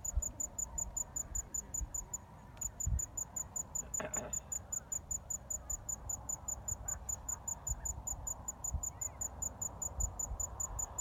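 An insect chirping in an even, high-pitched rhythm, several chirps a second, with a short break about two seconds in.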